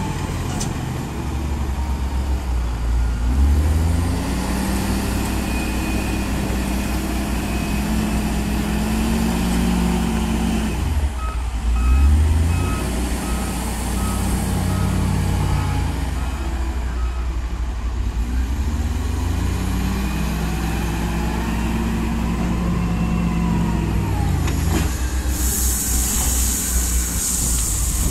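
Komatsu wheel loader's diesel engine revving up and easing off in two long working cycles, with a reversing alarm beeping in the middle. Near the end comes a loud hissing rush as a bucketful of gravel pours into the dump truck's bed.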